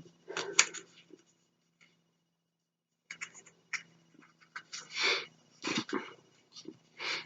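Paper rustling and scraping as a die-cut patterned-paper gusset is fan-folded back and forth and creased by hand. The sound comes in short scrapes, with a pause of about two seconds near the start.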